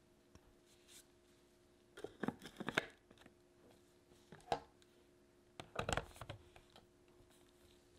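Plastic clicks and clatter of a mini food processor's lid and motor unit being fitted onto its bowl, in three short bursts.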